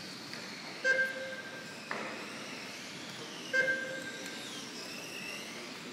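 Brushless electric RC touring cars running round an indoor track, a steady background with faint whines that rise and fall. Two loud electronic beeps, each just under a second long, sound about three seconds apart, with a sharp click between them.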